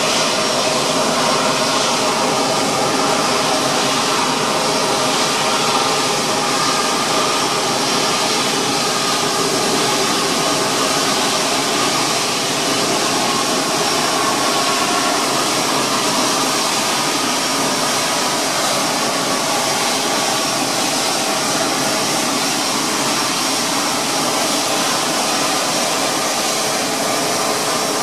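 Airbus A350-900's Rolls-Royce Trent XWB turbofan engines running at taxi power: a loud, steady jet whine of several held tones over a broad hiss.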